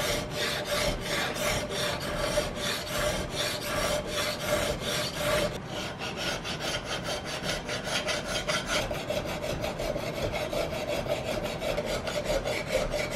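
A flat file draw-filing a flat of an octagonal steel rifle barrel: quick, even scraping strokes, several a second, with a faint steady ringing note underneath. The barrel face is being smoothed to an even finish, taking off the light stamped lettering.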